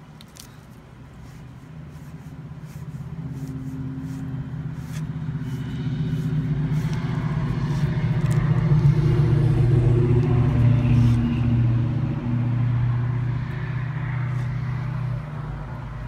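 A motor vehicle's engine passing: a low hum that swells for about nine seconds and then slowly fades. A few faint clicks come near the start.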